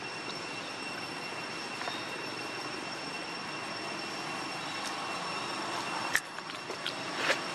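Steady outdoor background noise with a faint, high, steady whine, broken by a few sharp clicks or taps near the end, the loudest about six seconds in.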